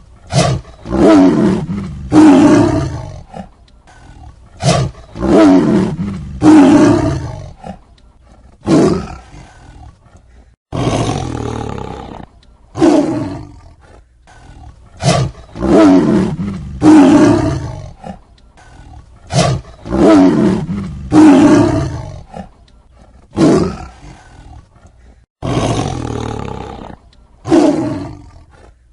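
Tiger roaring over and over, short deep roars coming about one every one to two seconds, with two sudden breaks where the recording is cut.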